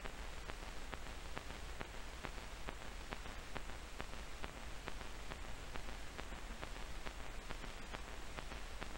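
Steady hiss and crackle of an old film soundtrack, with faint clicks about twice a second.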